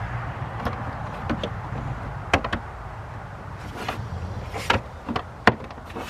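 Plastic engine cover and oil fill cap being refitted under the hood: a series of sharp clicks and knocks with a few short scrapes, spaced irregularly and coming more often in the second half.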